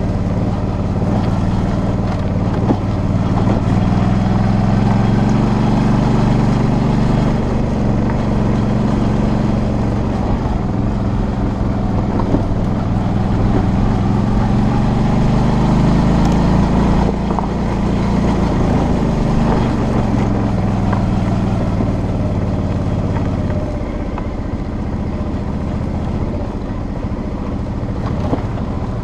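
Suzuki V-Strom 650's V-twin engine running under way on a gravel track, its note rising and falling gently with the throttle, then easing off to a lower, quieter note about three-quarters of the way through.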